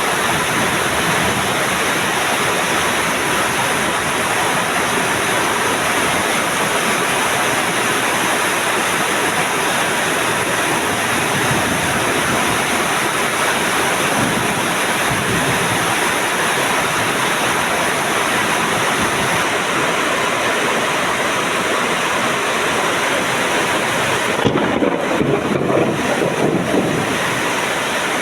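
Heavy rain pouring down steadily in a dense, even hiss. Near the end it turns louder and more uneven for a few seconds.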